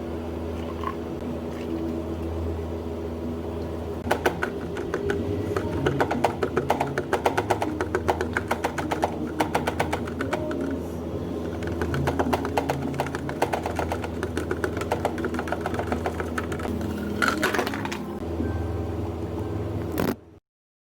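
Café work sounds: a steady machine hum, joined about four seconds in by a long run of rapid clattering taps and clicks, which cut off abruptly near the end.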